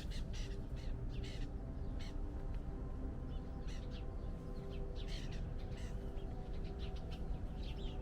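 A group of birds calling: many short, harsh calls scattered irregularly throughout, over a steady low hum.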